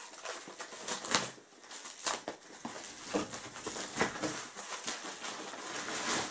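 Plastic parcel wrapping rustling and crinkling as a cardboard box is pulled out of it, with a few sharp scratchy crackles.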